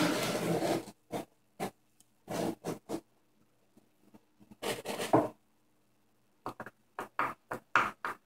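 Thin sheet metal being slid and handled over the belt of a homemade belt sander: brief scrapes and rubs of metal on the sanding belt and wood, with scattered light taps and clicks that come quick and close together in the last couple of seconds.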